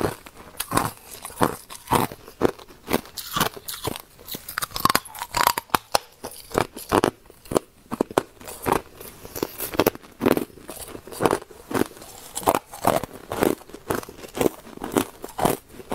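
Hard clear ice being bitten and chewed, a steady run of sharp crunches at about two a second.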